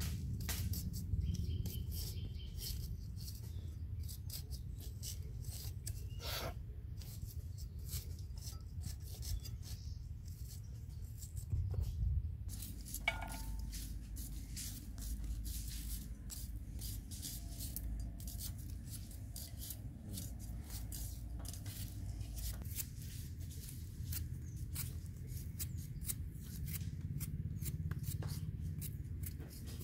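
Hand peeling and cutting of onions and potatoes against boti blades and small knives: a string of irregular crisp clicks and scrapes of blade on skin, over a steady low rumble.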